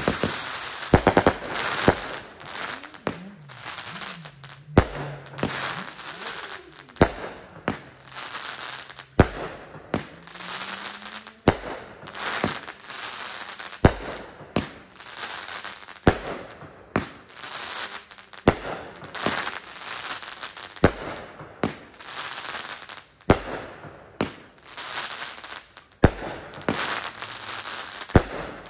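500-gram consumer firework cake firing one shot about every two seconds. Each shot gives a sharp bang as it launches and bursts, followed by crackling.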